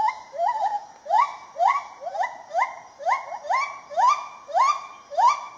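Lar gibbon singing: a long, regular series of hoots, about two a second, each rising quickly in pitch and then held.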